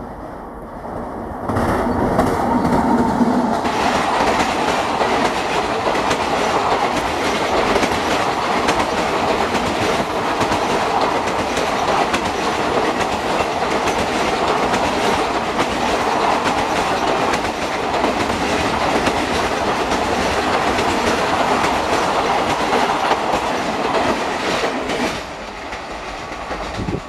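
WAP-7 electric locomotive passing close by at speed, followed by a long rake of blue ICF passenger coaches rolling past, their wheels clattering over the points. The noise rises sharply about a second and a half in, stays loud and steady, and drops off near the end as the last coaches go by.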